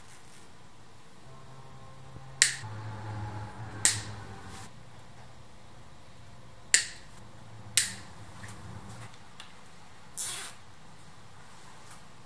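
Side cutters snipping through cable ties: four sharp snaps, two about a second and a half apart, then two more a second apart a few seconds later, followed by a brief rasp near the end.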